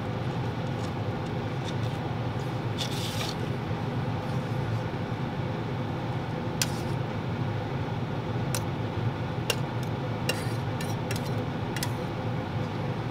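A knife scraping on a bread roll, then a fork scraping and clinking against a metal bowl as scrambled eggs are scooped onto the roll: light scrapes and scattered sharp clinks over a steady low hum.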